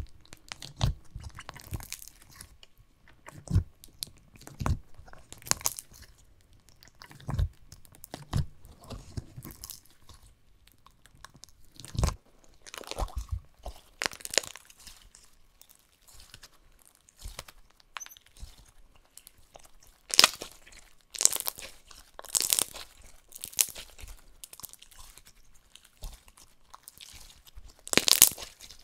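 Hands squishing, poking and stretching a pumpkin-themed slime mixed with Fimo slices and crunchy toppings, giving irregular crackling, popping and crunching sounds. The crackling comes in louder clusters about two-thirds through and again near the end.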